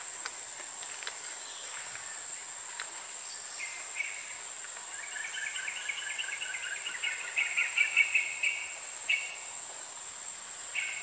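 Steady high-pitched drone of insects, crickets or cicadas, in tropical vegetation. From about four seconds in a run of rapid, repeated chirping calls grows louder and stops near eight and a half seconds, followed by two short chirps.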